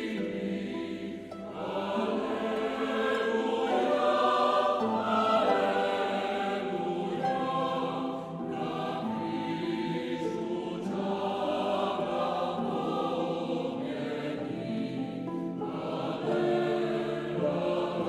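Mixed choir singing in full chords, with short breaks between phrases.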